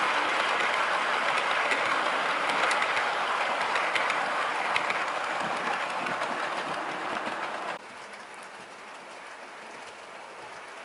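OO gauge model Mark 1 coaches rolling along the track behind a model Class 37, a steady rolling rumble with scattered light clicks from the wheels on the rails. It eases off a little, then drops suddenly about eight seconds in to a much fainter steady background.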